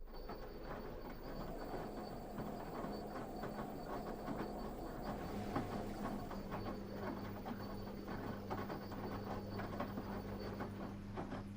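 LG washing machine running a quick wash cycle. It starts up suddenly: a steady motor or pump hum that strengthens partway through, under a continuous irregular clicking and rattling from the drum.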